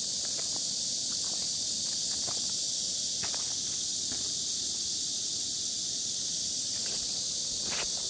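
Steady high-pitched insect chorus, with a few scattered clicks of stones and footsteps on a rocky riverbank.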